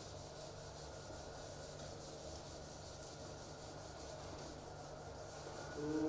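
Whiteboard eraser rubbing across a whiteboard: a faint, steady wiping sound.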